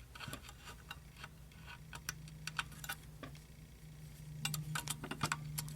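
Irregular small metallic clicks and scrapes of a lock pick and tension wrench working inside an old rusted lever lock, busier in the second half, over a steady low hum.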